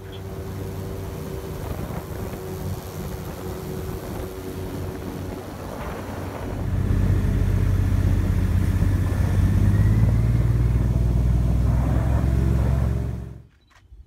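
Airboat engine and propeller running with a steady drone. It grows louder and heavier about six and a half seconds in, then cuts off abruptly near the end.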